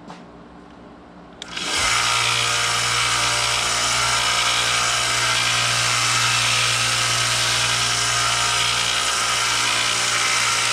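An electric power tool starts about a second and a half in and runs steadily at full speed, a constant low hum under a loud hiss.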